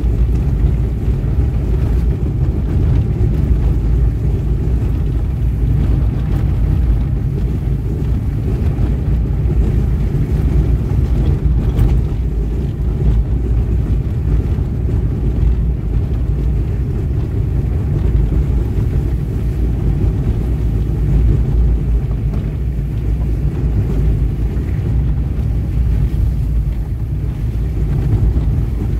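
Loud, steady, deep rumble that keeps on without a break, with no distinct knocks or calls in it.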